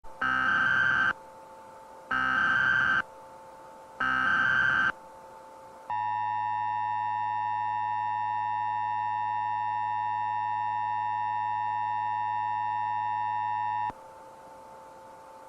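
Emergency Alert System broadcast tones: three data bursts of the digital SAME header, each about a second long and two seconds apart, then a steady two-tone attention signal lasting about eight seconds, over a faint constant hum.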